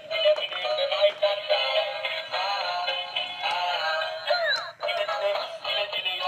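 Battery-powered light-up clownfish toy playing a tinny electronic song with a synthesized voice through its small built-in speaker. About four and a half seconds in there is a quick falling sound effect and a brief break in the tune.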